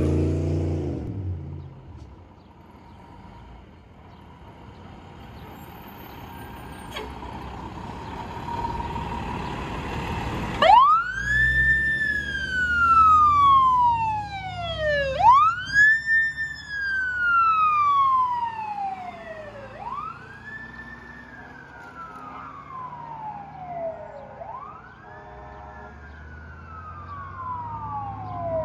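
A fire truck's engine rumbles as it pulls out, then about ten seconds in its siren starts a wail. Each sweep rises quickly and falls slowly, repeating about every four and a half seconds and growing fainter as the truck drives away.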